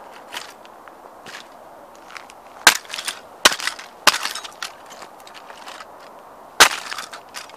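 Sneaker stomping on a red Ferrari model toy car on gravel: sharp cracks of the model's body breaking apart, with smaller clicks and gravel crunching underfoot. Three loud cracks come in quick succession a little under halfway in, and another near the end.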